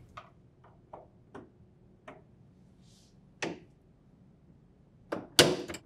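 Small plastic clicks and taps as a jeweler's screwdriver presses the release tab on an LG refrigerator's plastic freezer-drawer gear and the gear is pulled up off its slide rail. A few faint clicks come first, then a sharper one about three and a half seconds in and two more near the end.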